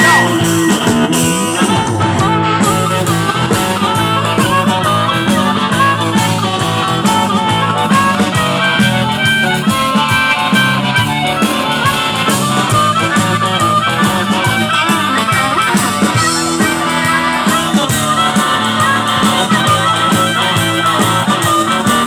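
Live blues-rock band in an instrumental break: a harmonica solo played into the vocal microphone over electric guitar, electric bass and a drum kit keeping a steady beat.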